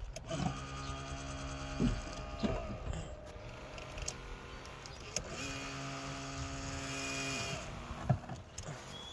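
Electro-hydraulic pumps of two Power-Pole shallow-water anchors running as the poles swing. There are two steady whines of about two seconds each, a few seconds apart, and a sharp click near the end. The poles are working again after the repair.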